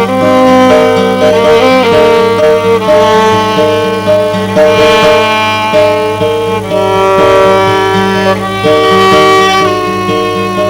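Violin and guitar duo playing; the violin carries the melody in held, changing notes over a steady low accompaniment.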